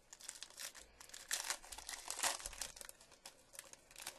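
Foil wrapper of a 2012 Topps Finest baseball card pack being torn open and crinkled by hand: a dense run of sharp crackles and rustles, loudest in the middle.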